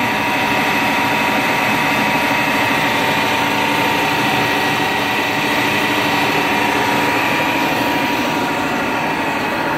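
Gisholt 4L turret lathe running, its spindle and gear drive turning under power: a steady machine hum with constant whining tones.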